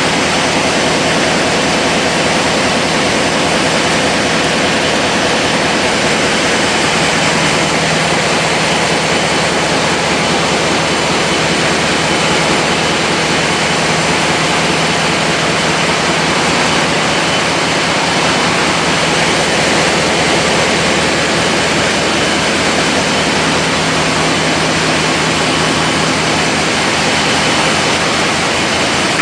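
Loud, steady drone of running engine machinery, with a low hum under an even roar that does not change.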